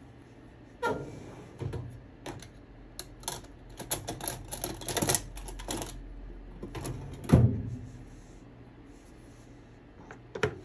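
Hands handling fabric and small sewing tools on a tabletop: irregular clicks, taps and rustles, thickest in the middle, with one louder knock about seven seconds in and another click near the end.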